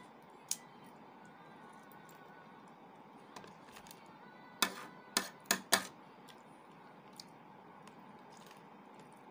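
Sharp clicks and taps from eating a boiled duck egg (penoy) by hand: a quick run of four about halfway through, with a few fainter ticks around them.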